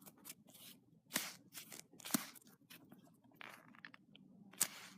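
Faint rustling and light clicks of hands handling a foam squishy toy, a few sharper clicks among soft scuffs, the sharpest about four and a half seconds in.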